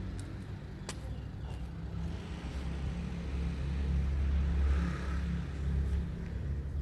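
Low outdoor rumble that swells to its loudest a little past the middle, with a single sharp click about a second in.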